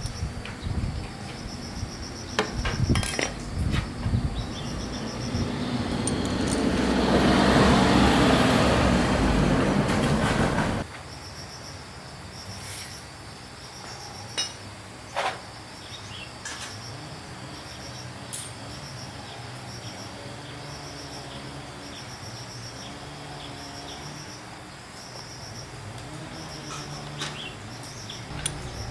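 Insects chirping in quick, even pulses, with scattered sharp knocks. A loud rushing noise builds over several seconds and cuts off suddenly about eleven seconds in.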